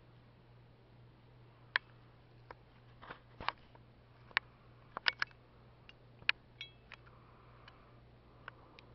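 A series of irregular sharp clicks and taps, about a dozen spread unevenly over several seconds, over a low steady hum.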